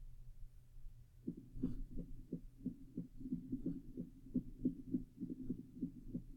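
Recorded abnormal heart sounds: faint, low beats that start about a second in and come fast, then slow, with no steady rhythm, an irregular heartbeat.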